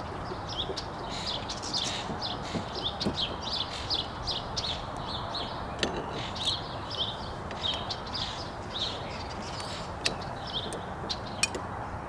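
Small birds chirping, quick high chirps several times a second, over steady wind noise. A couple of sharp clicks near the end as the old RV door lock is worked loose from the door.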